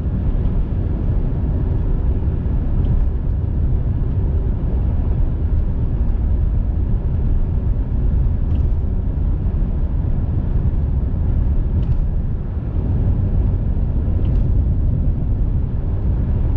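Steady low rumble of road and engine noise inside a moving car, with a few faint ticks.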